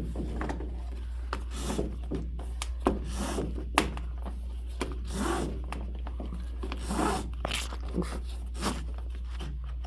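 Drum rope being pulled and slid through a wooden bass drum's hoops as the lacing is undone: irregular short rasping swishes with a few sharp clicks and knocks.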